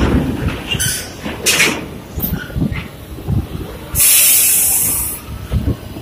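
Metal clanks and thumps, then a loud hiss of released air about four seconds in that lasts just over a second, typical of a bus's air brakes.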